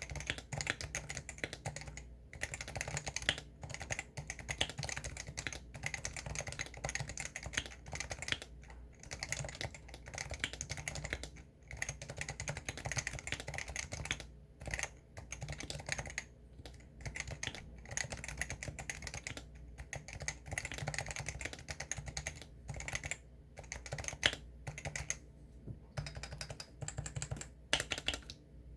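Continuous fast typing on a Leopold 660-series compact keyboard, a dense run of key clicks broken by short pauses every few seconds.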